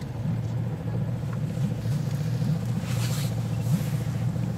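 Outboard motor of an inflatable Zodiac boat running steadily, a low rumble, with a brief hiss about three seconds in.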